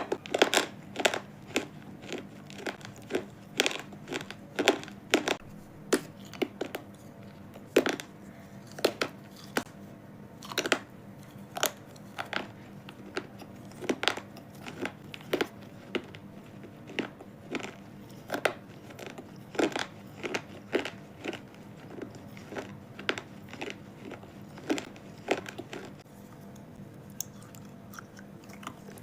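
Close-up crunching as someone bites into and chews a hard, dry, brittle material: sharp crisp crunches at an irregular pace of about one or two a second, over a faint steady hum.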